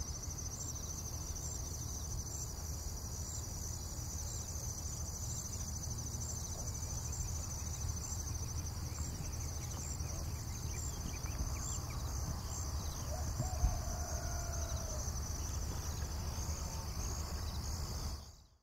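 A steady high-pitched insect chorus with an even pulsing texture, over a low steady rumble.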